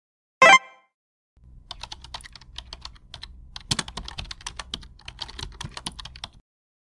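Computer keyboard typing sound effect: a run of irregular key clicks for about five seconds, laid over text being typed onto the screen. It is preceded by one short, loud pop about half a second in.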